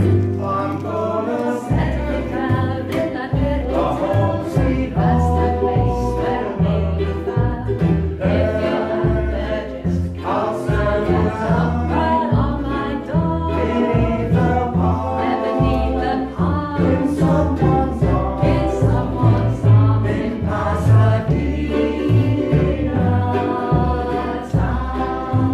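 A ukulele band playing live: several ukuleles strummed over a plucked upright double bass, with several voices singing together.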